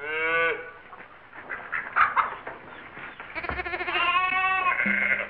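Two drawn-out cries from a young animal, with many overtones: a short rising one right at the start and a longer, quavering one of about a second later on. A brief clatter falls between them, about two seconds in, and is the loudest moment.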